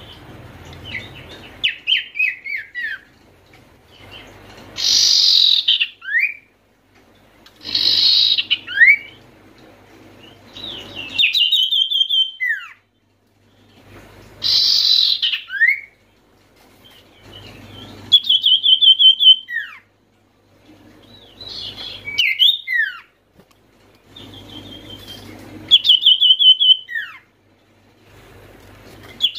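Common iora (sirtu/cipoh) singing loudly in repeated phrases about every three seconds. Each phrase is a quick run of notes or a harsh burst, ending in one slurred note that slides up or down.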